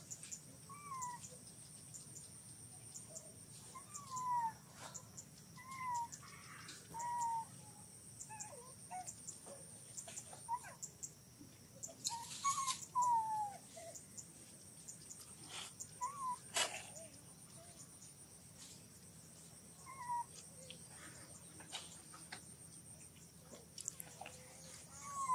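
Baby macaque crying in short, high squeaks that fall in pitch, about one a second, a distress call over being kept from its mother's milk. A steady high insect whine runs underneath.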